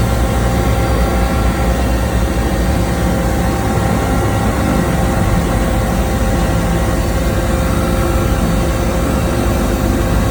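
Seaplane engines running with a loud, steady drone: a continuous engine tone over a low rumble, with no rise or fall.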